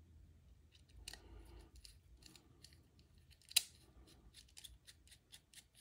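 Faint, light clicks and ticks of a small precision screwdriver working the screws of a folding knife's handle scales, with one sharper metallic click about three and a half seconds in.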